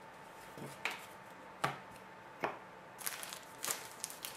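Three light taps about a second apart, then rustling and crinkling near the end: trading cards being handled and set down on a table, with the foil wrapper of a card pack crinkling.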